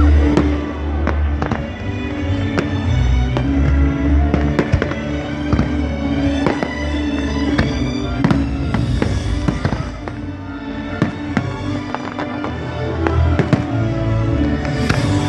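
Fireworks bursting and crackling, many sharp bangs in quick succession, over loud music with a strong bass.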